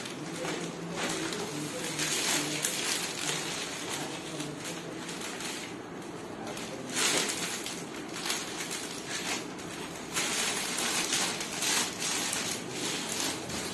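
Clear plastic packaging crinkling and rustling as a dress is pulled out of its bag and unfolded, with the fabric rustling too. The rustling comes in louder bursts a couple of times.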